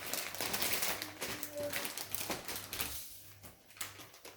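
Plastic toy packaging crinkling and clicking as it is handled: a dense run of crackles that thins out near the end.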